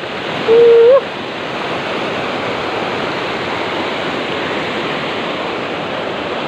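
Water pouring over a small concrete weir at a sluice gate, a steady loud rush. About half a second in, a short loud single tone sounds for half a second, rising slightly just before it stops.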